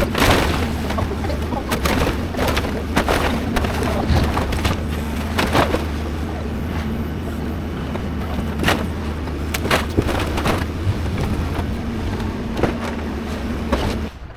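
Excavator engine running steadily under load, with repeated sharp cracks and crashes of building debris being broken and dropped. The sound drops away suddenly near the end.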